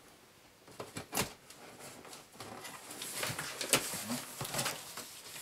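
Scissors cutting into the packing tape of a large cardboard box, with a sharp snip about a second in, followed by irregular scraping, rustling and clicking of the cardboard as the box is worked open.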